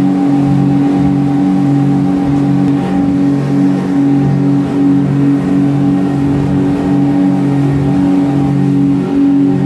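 Twin Yamaha engines, 500 horsepower together, driving a speedboat under way, heard from inside its cabin as a steady drone: one strong hum with lower tones wavering and beating against each other.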